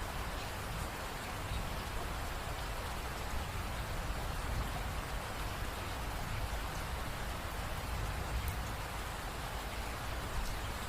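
Steady rain falling, a continuous even hiss with a low rumble beneath and scattered faint drop ticks.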